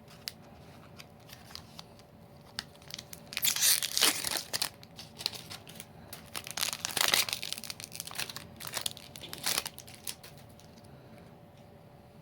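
Foil wrapper of a Magic: The Gathering booster pack being torn open and crinkled in the hands. There are several bursts of crackling, the loudest about a third of the way in and just past halfway, a smaller one later on, and quieter rustling in between.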